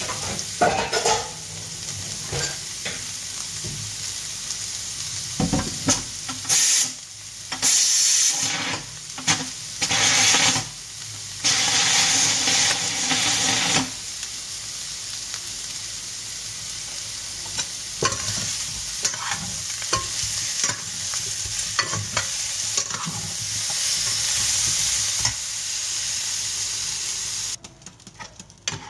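Soya chunks frying in hot oil in a stainless steel pan: a steady sizzle, with louder crackling stretches about six to fourteen seconds in. The sizzle cuts off sharply near the end.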